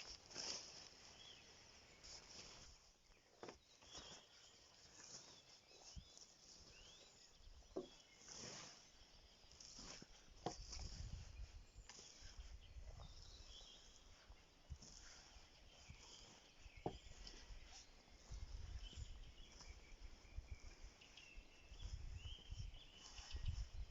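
Faint outdoor ambience: scattered light clicks and knocks, a few faint short high chirps, and patches of low rumble.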